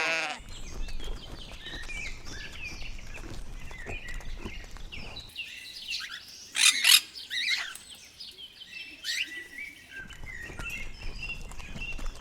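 Small birds chirping and calling in quick short notes, with one loud, sharp call about six and a half seconds in.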